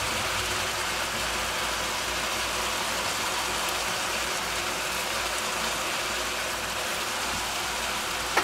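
Strips of gyros meat with onions and garlic sizzling steadily in a hot frying pan.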